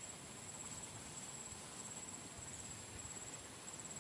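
Steady, faint insect chorus: a continuous high-pitched whine over a low background hiss.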